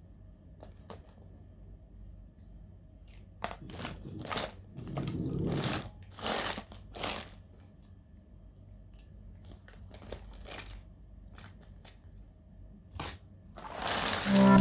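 Small paint tubes and coloured pencils handled and pushed across a cardboard sketchbook cover: scattered clicks, rattles and rustles, busiest about four to seven seconds in. Near the end a swelling whoosh leads into music.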